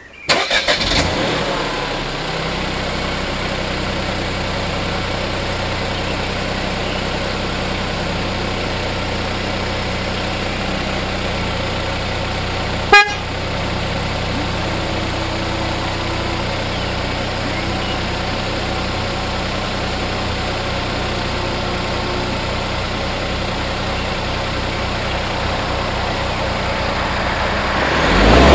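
Car engine starting, then idling steadily for a long stretch, with one sharp click about halfway through. Near the end the engine revs up and gets louder.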